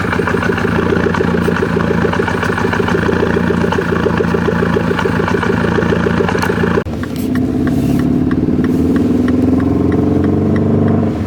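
Mini Cooper S R56's 1.6-litre turbocharged four-cylinder engine running with a misfire caused by a faulty ignition coil pack. About seven seconds in, the sound cuts abruptly to a smoother engine tone with a slowly wavering pitch.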